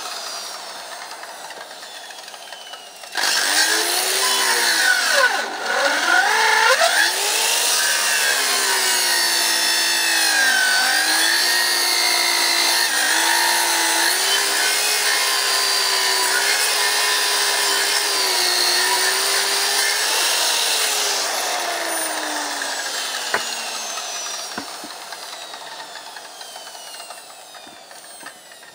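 Electric power saw cutting firewood. About three seconds in it starts with a sudden whine, and its pitch dips and recovers as the blade bites into the wood. It then runs steadily, and after switching off it winds down with a falling whine over several seconds.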